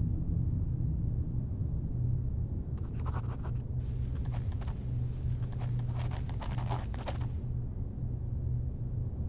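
Pen scratching on paper in a run of short strokes for about four seconds, as notes are written on a spiral-bound notepad, over a steady low hum.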